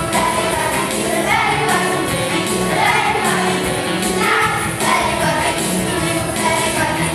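A group of children singing a song together with musical accompaniment.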